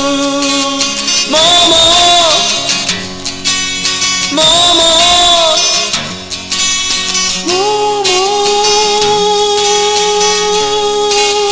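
Korean folk-pop song playing with acoustic guitar and no lyrics sung: short melodic phrases, then one long held note in the second half.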